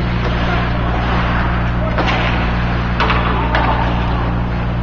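Ice hockey sticks clacking sharply against the puck and ice, a few times in the second half, over a steady low hum and the noise of the rink.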